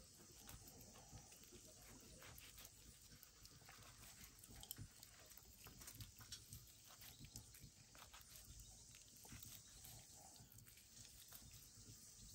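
Near silence, with faint scattered clicks from a knife cutting raw buffalo meat into strips held in the hand.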